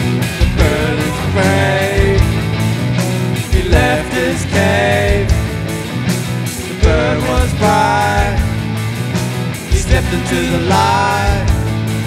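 Rock band playing live: drum kit, bass and electric guitars, with a voice singing phrases over them.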